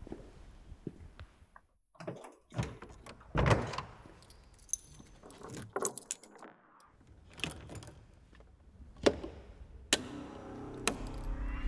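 Keys jangling and a run of separate clicks and knocks from an AC Cobra's cockpit as the ignition key and dashboard switches are worked. A low steady hum starts near the end.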